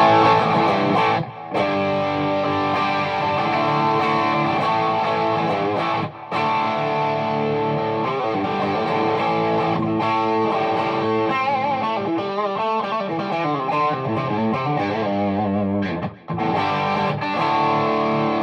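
Les Paul-type electric guitar played through a Matchless Laurel Canyon valve amp head on its red channel, pushed by an Analogman King of Tone overdrive pedal into a 2x12 cabinet with Celestion G12M-65 speakers, heard through a phone's microphone. Sustained overdriven chords and lines, with short breaks about a second in, about six seconds in and near the end, and bent or vibratoed notes around the middle.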